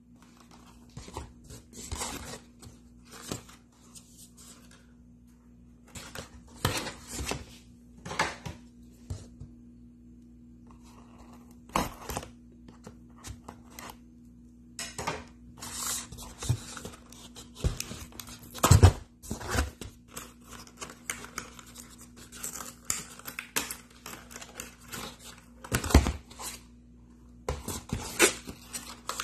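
A cardboard box and its packaging handled and opened by hand: irregular rustling, scraping and tearing, with sharp knocks of cardboard, the loudest about two-thirds of the way in.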